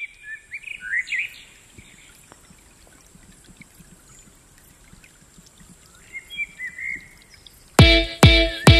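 Birds chirping in short bursts over a faint steady outdoor hiss. About a second before the end, an electronic dance track starts with a heavy kick drum beating about two and a half times a second.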